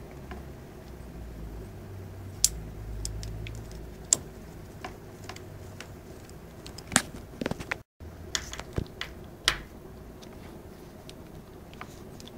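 Small metal parts of a button-making kit being handled: scattered light clicks and taps over a low steady hum.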